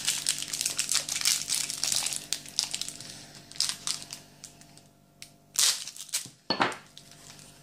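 Sweet packaging being handled and opened, crinkling steadily for about three seconds, then a few separate, quieter rustles.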